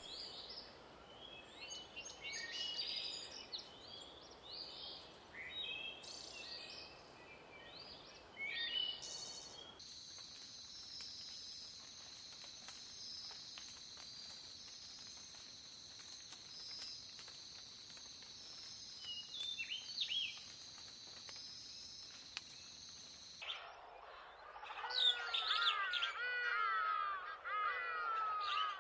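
Birds chirping and calling across several cuts: first many short high chirps, then a steady high-pitched hiss with only a few chirps, then louder repeated downward-sliding calls near the end.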